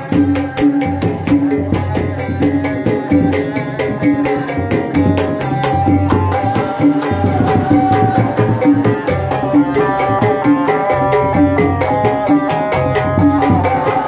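Live Sundanese street-procession music from a tanji troupe: drums beaten in a fast, steady rhythm under a sustained melody, played continuously and loud.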